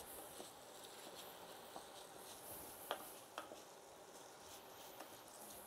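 Very quiet stirring of risotto rice being toasted in olive oil in a saucepan: a few light, scattered ticks of a spoon against the pan over a faint hiss.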